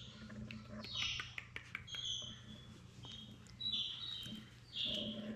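Three-week-old English Springer Spaniel puppies giving a string of short, high-pitched squeaks, about five of them, with light scuffling and clicks of paws on a blanket.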